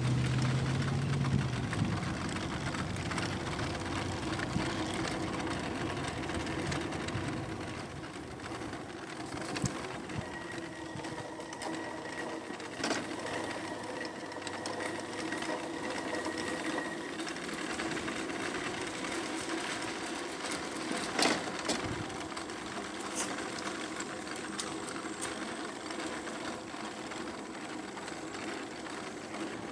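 Aostirmotor S17 e-bike under way: a steady, machine-like whir from the electric motor and drivetrain over tyre and road noise. A few sharp knocks cut through, the loudest about two-thirds of the way in.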